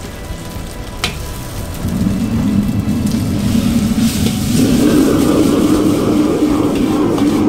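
Gas flame of a commercial wok burner running hard under a wok of stir-fried rice noodles, a low rushing noise that rises about two seconds in and grows louder again around the fifth second. A single metal click of the ladle against the wok comes about a second in.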